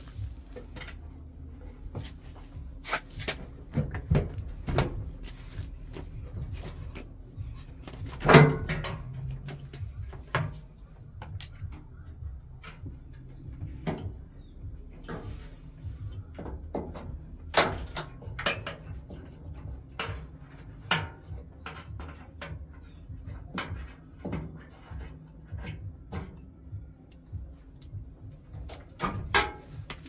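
Scattered knocks, clicks and clunks of a washing machine's door and sheet-metal front panel being handled and fitted, with one louder knock about eight seconds in.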